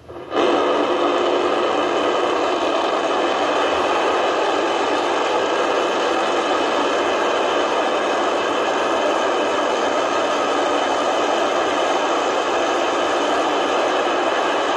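Steady roar of a Starship prototype's Raptor rocket engines firing for the landing burn. It starts abruptly a moment in and holds at an even level, with little deep rumble.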